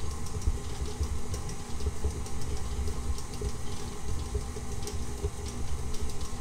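Electric stand mixer running steadily, its flat beater creaming butter and sugar in a stainless steel bowl, beating the mixture until fluffy.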